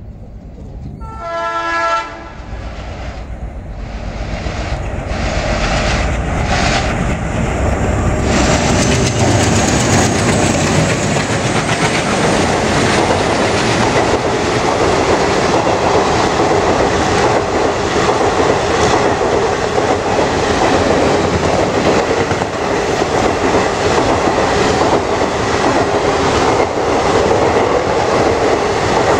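Twin ALCO WDG3A diesel locomotives passing at speed with an express train, sounding a short horn blast about a second in. The engines chug past, then the sound builds into a loud, steady rumble and clatter of coach wheels beating over the rail joints.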